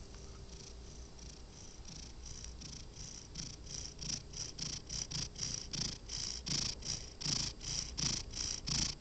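Cat's rhythmic breathing noise: a pulsing rasp a couple of times a second that grows steadily louder.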